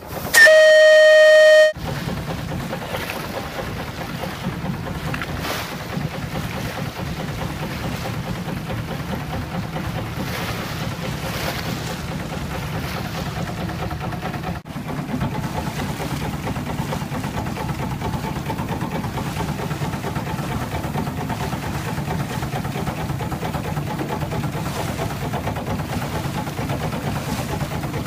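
A steam whistle's single-note blast ends about two seconds in. It gives way to a steady rumble and rush of a boat under way on open water, broken briefly about halfway through.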